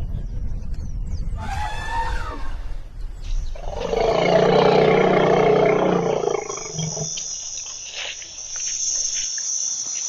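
Elephant calling: a shorter call with wavering pitch about two seconds in, then a loud roar lasting about two and a half seconds from about three and a half seconds in. A steady high hiss runs under the second half.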